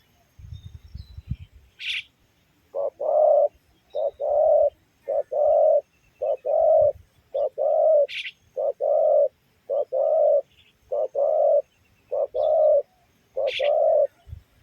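Spotted dove cooing: a steady run of about a dozen two-part coos, roughly one a second, starting about three seconds in. A few brief high chirps break in between them.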